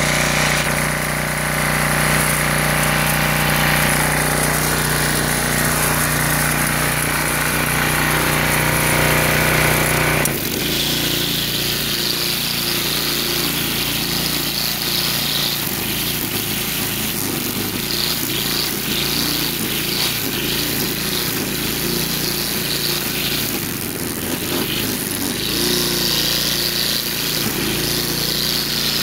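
Small gas engine of a Craftsman 22-inch wheeled string trimmer running steadily at speed. About ten seconds in its sound changes abruptly and runs rougher and less even while the spinning trimmer line is pushed through grass.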